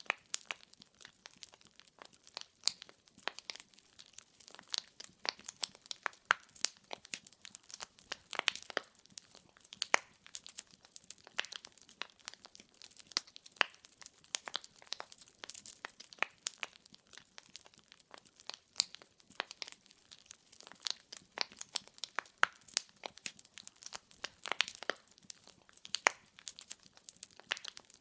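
Firewood burning in a fireplace, crackling with irregular sharp pops and snaps, several a second.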